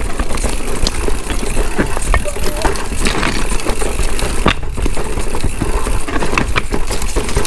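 Downhill mountain bike clattering over a rough trail: tyres on rock and gravel, with many sharp knocks and rattles from the chain and frame. A steady low wind rumble on the microphone underneath.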